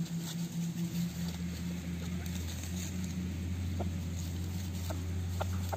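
A steady low hum from an unseen motor or engine drops to a lower pitch about a second in. Over it come faint scattered ticks and rustles as junglefowl peck and scratch in dry leaf litter. There is no crowing.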